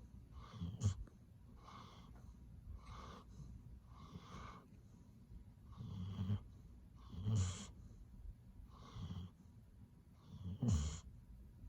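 Chocolate Labrador Retriever snoring in its sleep: a regular run of breaths every second or so, each with a faint wheezy whistle, and a few louder, low rattling snores about a second in, twice around six to seven seconds, and once near the end.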